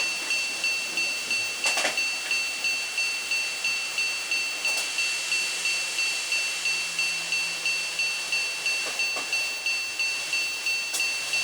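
Model-railway level-crossing warning bell ringing steadily, about three high dings a second, with a few short clicks and rattles from an N-gauge train running on the track.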